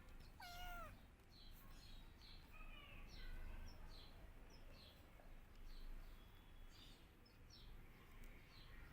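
Kitten meowing: one clear falling meow about half a second in and a fainter one around three seconds, the crying of a kitten searching for its mother. Small birds chirp steadily in the background.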